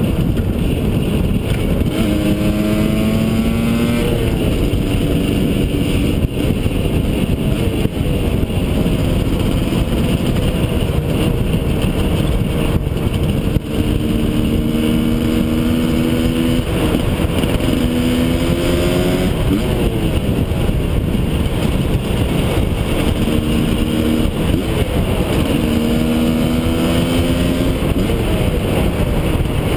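Husqvarna SM 125 two-stroke single with a Jollymoto exhaust under way, revving up through the gears: the engine pitch climbs and then drops at each shift, several times, over a steady rushing noise.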